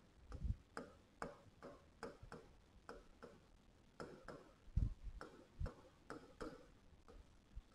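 Faint, irregular ticks of a stylus tapping on an interactive whiteboard's screen during handwriting, about two or three a second, with a few duller knocks about half a second in and around five seconds in.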